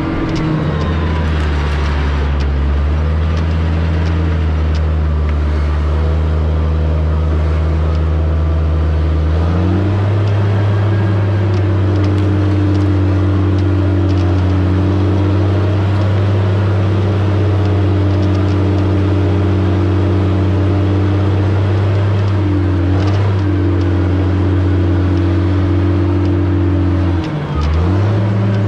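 Heavy diesel engine of a logging machine running hard and steadily. Its pitch steps up about ten seconds in and dips briefly near the end.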